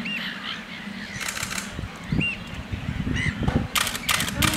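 Common crane chick peeping in short, high chirps, among several brief loud bursts of noise.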